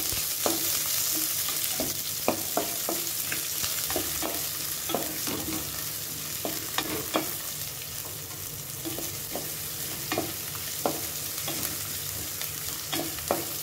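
Chopped onions sizzling in hot oil in a shallow aluminium pan, with a steady hiss, while a spatula stirs them and scrapes and taps against the pan in many short clicks.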